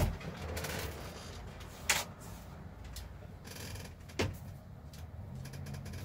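Laptop bottom cover being picked up and handled: three sharp clicks and knocks, the loudest about two seconds in, with brief scraping and rubbing between them.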